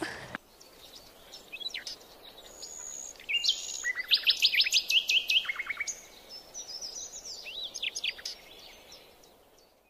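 Birds chirping and calling in short notes and quick trills, busiest in the middle and again near the end, over a faint steady hiss of rain.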